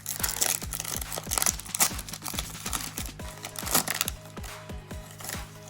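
Foil wrapper of a trading card pack crinkling and tearing in bursts as it is ripped open, over background music with a steady beat.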